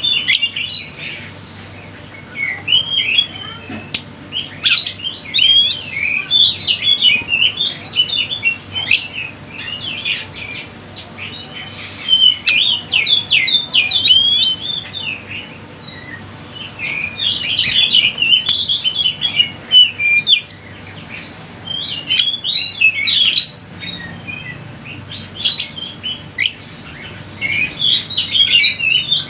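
Tledekan gunung songbird singing busy, chattering phrases of quick high chirps and twitters, in bursts of several seconds with short pauses between.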